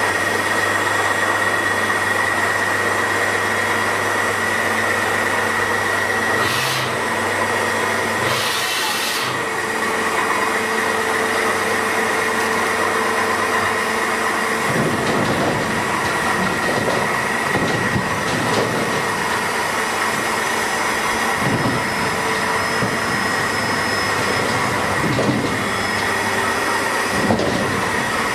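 Daewoo ACE HM 800 horizontal machining center running with its spindle and multi-insert milling cutter, a steady mechanical hum over a high whine, with two short hisses a few seconds in. About halfway the low hum drops out and the noise turns rougher and uneven.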